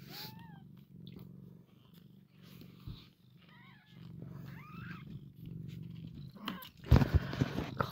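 Elf sphynx mother cat purring steadily, with newborn kittens giving short high squeaky mews here and there. A loud rustling bump comes about seven seconds in.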